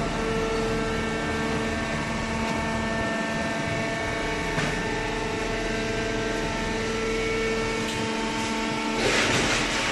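Hydraulic baling press running: a steady motor and pump hum with several fixed tones, a single click near the middle, and a loud hiss starting near the end.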